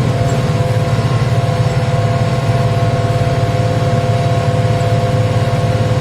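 Tractor diesel engine running steadily under load while pulling a plough, a constant low drone with a steady whine above it.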